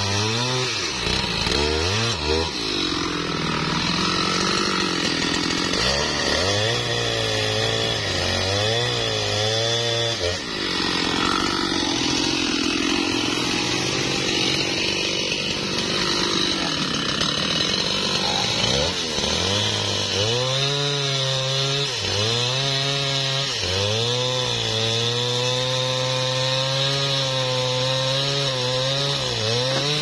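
Two-stroke chainsaw cutting through a mahogany log. The engine note rises and falls over and over as it takes load in the wood and is throttled.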